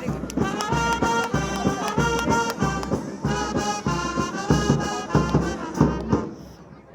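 Music with a melody over a steady beat, cutting off about six seconds in.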